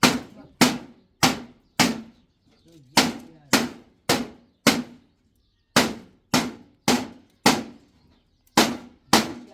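Repeated hammer blows, one every half second or so, in runs of about four with short pauses, each strike sharp with a brief ring.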